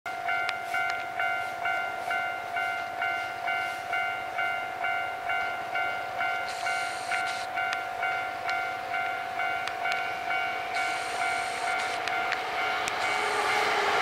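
Japanese railway level-crossing alarm ringing: an electronic bell tone repeating about twice a second. Near the end the running noise of the approaching Hankyu 5300-series train rises as it reaches the crossing.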